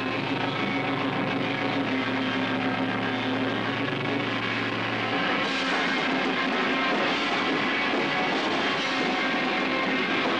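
Live rock band playing loud and distorted, drum kit and amplified guitars. Held low notes sound through the first half. About five seconds in they break off and a bright crashing wash of cymbals and guitars takes over.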